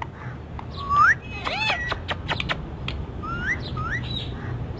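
Indian ringneck parakeet whistling and chirping: a rising whistle about a second in, a quick run of short chirps and sharp clicks, then two more rising whistles near the end.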